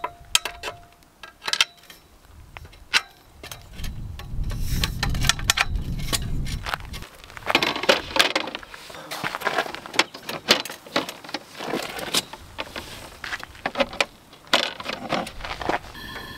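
Metal clicks and clanks of a folding aluminium camp table being put together, its frame bars fitted and the tabletop panels set down on it, with a low rumble for a few seconds partway through.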